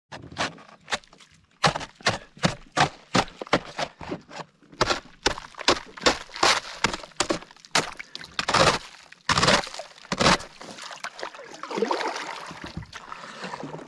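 Kayak paddle blade striking and breaking up a termite mound standing in the water, a fast run of sharp knocks, two or three a second, hardest about nine to ten seconds in. Near the end, water splashes and churns as broken pieces fall in. The mound is being broken up as termite chum to draw fish.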